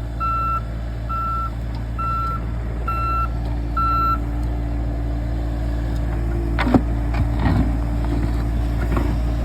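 Volvo mini excavator running, its alarm beeping about once a second, five times, before stopping about four seconds in. The diesel engine keeps running steadily, with a few short knocks from the machine's work in the second half.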